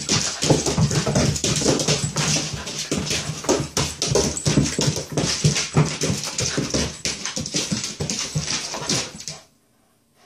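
Shiba Inu whining and yipping in a rapid, continuous stream while spinning after its tail. It stops abruptly about nine seconds in.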